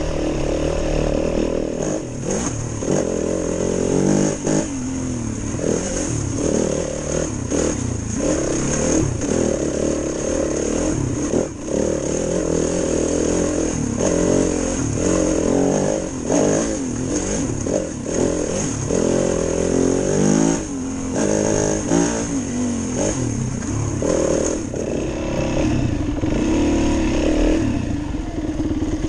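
Single-cylinder dirt bike engine running hard along a trail, its note rising and falling with the throttle and dropping briefly many times as the throttle is rolled off and picked up again.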